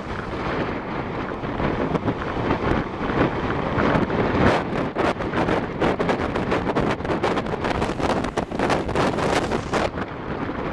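Strong typhoon wind buffeting the microphone in ragged, irregular gusts.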